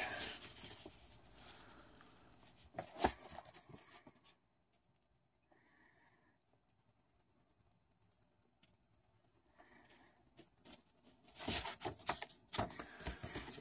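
Sheet of paper rustling as a letter is handled and unfolded. There are short rustles at first and a sharp tap about three seconds in, then several seconds of near silence, then more paper rustling near the end.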